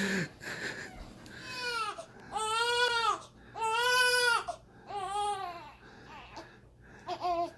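Newborn baby crying: four high-pitched wails about a second each, each rising and then falling in pitch, followed by a short cry near the end.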